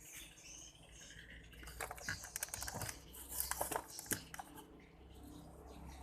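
Light clicking and tapping of small objects being handled, a quick irregular run of them between about two and four seconds in.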